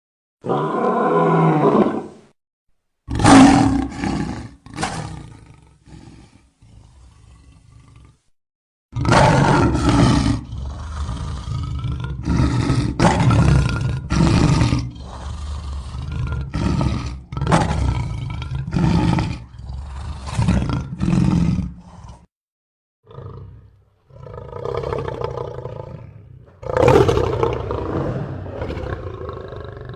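A string of edited big-cat and monster roar and growl sound effects, cut one after another. Separate roars come in quick succession, with a few abrupt silent gaps between clips.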